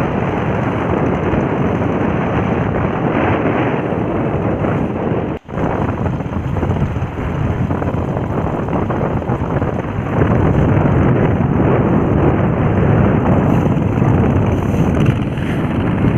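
A vallam fishing boat's engine running under way at sea, with heavy wind noise buffeting the microphone. The sound cuts out for an instant about five seconds in and gets louder around ten seconds in.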